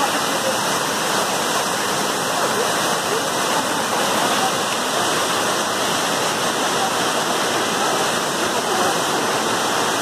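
Waterfall's steady rush of falling water, an even hiss that never lets up.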